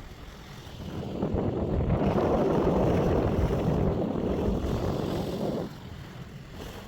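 Wind buffeting the microphone over surf at the shore. The noise swells about a second in and drops off abruptly near the end.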